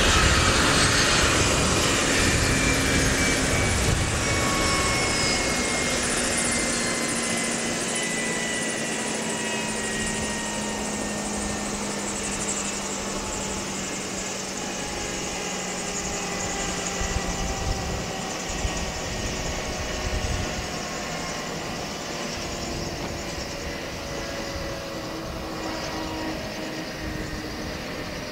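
Eurocopter EC155B helicopter's twin turboshaft engines and rotors winding down after engine cut: several whining tones slowly falling in pitch while the whole sound gradually gets quieter.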